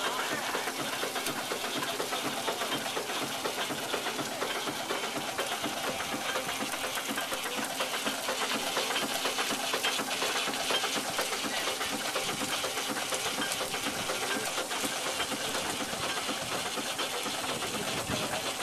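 A machine running with a steady, rapid clatter.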